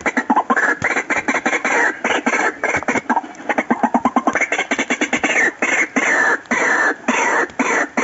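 White-breasted waterhens calling: a long, rapid run of harsh, croaking notes, repeated many times a second in loud bursts.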